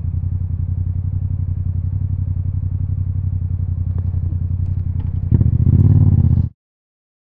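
Yamaha MT-07's parallel-twin engine through an Akrapovic titanium exhaust, running steadily at low revs with an even pulsing note. It gives a brief louder rev about five seconds in, then cuts off suddenly.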